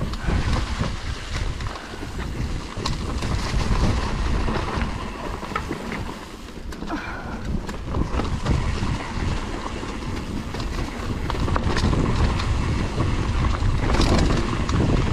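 Wind buffeting the microphone during a mountain-bike descent, over a low rumble of tyres on rough dirt. Frequent short clicks and knocks come from the bike jolting over bumps.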